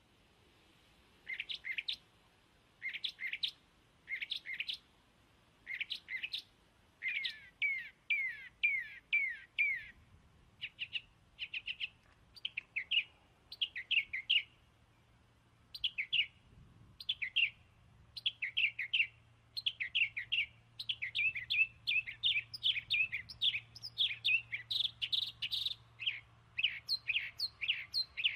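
Small birds chirping in quick runs of three to five short, falling chirps, the runs coming every second or so and growing busier toward the end.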